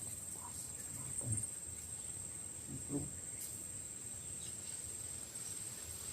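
An insect, probably a cricket, trilling steadily in one continuous high-pitched tone, with a couple of faint low sounds about a second and three seconds in.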